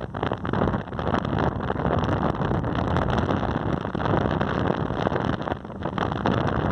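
Wind blowing hard and buffeting the microphone, a rough, gusty rumble that eases briefly near the end.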